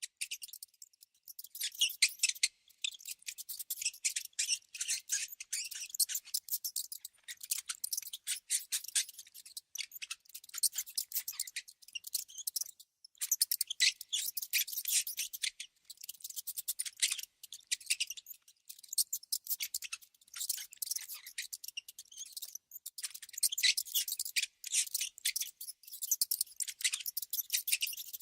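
Mice squeaking: rapid, high-pitched squeaks and chirps in dense clusters, with brief pauses every few seconds.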